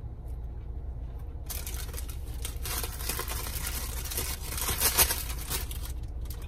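Paper sandwich wrapper crinkling and rustling, starting about a second and a half in, over a steady low hum.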